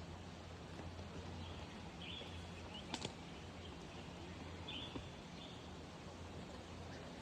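Faint, short bird chirps, a few scattered calls over several seconds, against a steady low hum. There is a single sharp click about three seconds in.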